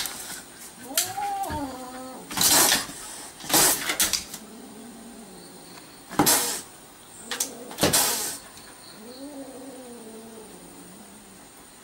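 A kitten meowing: a rising-and-falling call about a second in and a longer, lower drawn-out call near the end, with four or five short, harsh noisy bursts in between.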